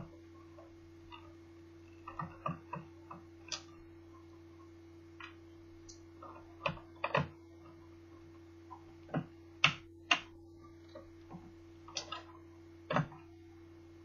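Irregular clicks and taps of the Toshiba Satellite L650D laptop's plastic casing and parts being handled and pried apart during disassembly, a few with a short ring, over a steady low electrical hum.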